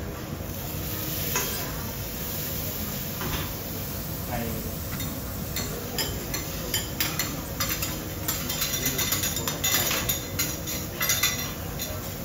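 Food sizzling on a teppanyaki griddle while metal spatulas scrape and tap on the hot plate, the taps and clicks coming thick and fast in the second half.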